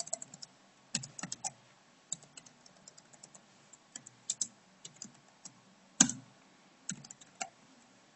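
Typing on a computer keyboard: irregular runs of key clicks, with one much louder keystroke about six seconds in.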